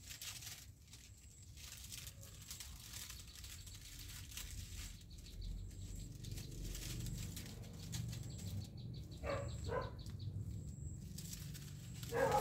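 Rural outdoor ambience: a low steady rumble with faint bird chirps, and two short animal calls about nine seconds in.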